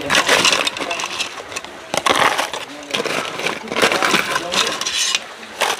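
Ice cubes scraping and clattering as a metal spoon scoops them from an aluminium pot into a plastic cup, in irregular bursts.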